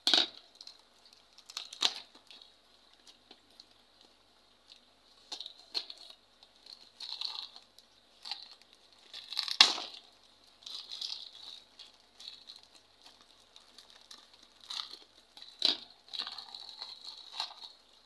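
Black plastic mailer bag being cut with scissors and torn open by hand, its plastic crinkling on and off, with a few sharp clicks; the loudest click comes about halfway through.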